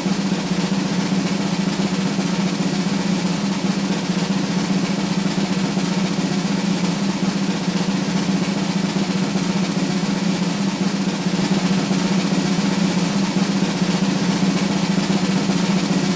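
A continuous snare drum roll, steady and unbroken throughout.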